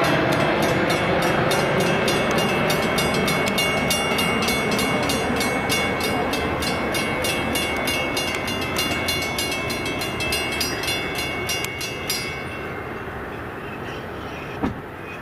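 Grade-crossing bell ringing in rapid, even strokes over the rumble of a departing Metra bilevel commuter train. The bell stops suddenly after about twelve seconds, and the train's rumble keeps fading as it pulls away. A single sharp knock comes near the end.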